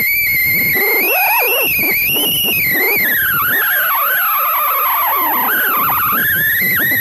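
Cessna 172 stall warning horn sounding: a high wavering whistle that slides up and down in pitch, dipping lower about midway before rising again. It signals that the wing is near the stall.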